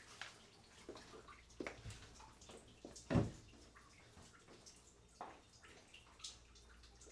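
Quiet room with scattered soft clicks and rustles, and one dull thump about three seconds in that is the loudest sound.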